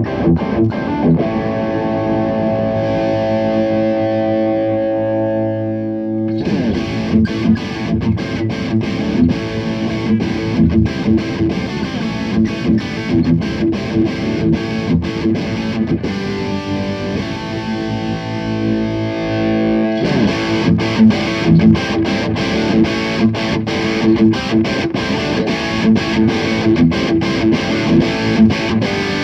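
Electric guitar through a Fire Custom Shop Ultimate Distortion pedal and a Peavey Bandit 112 amplifier, played on the Stratocaster's bridge humbucker. A distorted chord rings out for several seconds, then a fast picked riff follows, with another held chord about midway and more fast riffing near the end.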